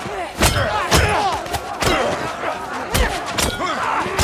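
Fight-scene soundtrack of a brawl: about six heavy punches and body blows land at irregular intervals, roughly once a second, over many men shouting and yelling at once.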